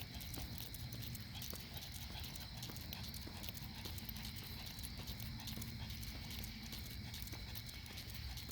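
Footsteps on a hard path during a walk: a run of light, clicking steps over a low steady rumble, with faint steady high-pitched tones behind.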